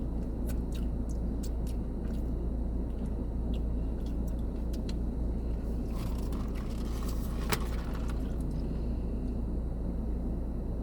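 Steady low rumble of a car idling, heard from inside the cabin, with scattered small clicks from eating.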